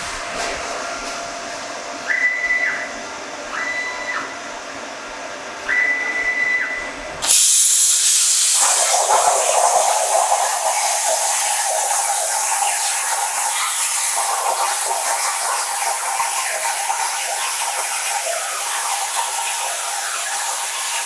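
Razorcut 45 plasma cutter with its X45 torch cutting half-inch steel plate at 45 A: a loud, steady hiss of the arc and air that starts suddenly about seven seconds in. Before it there is a quieter steady hum with three short high whines.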